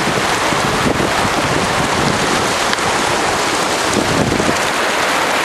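Wind buffeting the camera microphone over the wash of surf on the coastal rocks: a loud, steady rushing noise.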